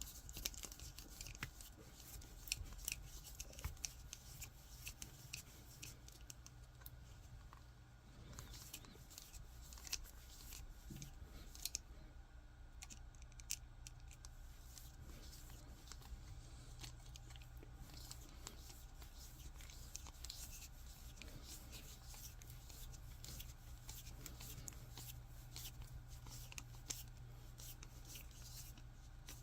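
Faint, scattered small clicks and scraping of small 3D-printed plastic parts being handled and a small screw being driven into them by hand, over a steady low background hum.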